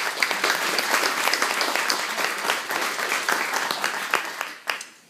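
An audience applauding, many hands clapping together, dying away about four and a half seconds in.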